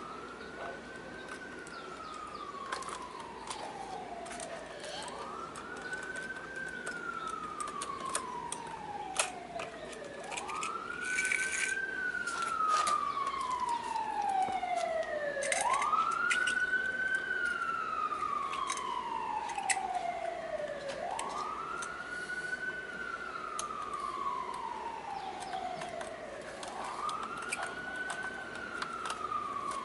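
Emergency vehicle siren wailing: a tone that climbs quickly and then falls slowly, repeating about every five seconds and growing louder toward the middle. Light clicks and taps from small plastic toy garbage carts being handled.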